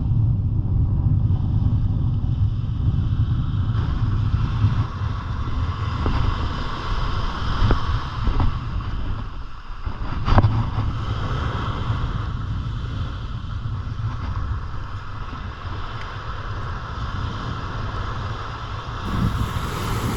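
Wind buffeting the microphone by the sea, with waves in the background and a few sharp knocks about halfway through.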